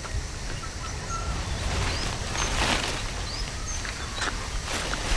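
Tropical forest ambience: scattered short bird chirps over a steady low rumble, with rustling and snapping of twigs and leaves as a crested black macaque pulls at branches to feed. The rustling is loudest about halfway through and again near the end.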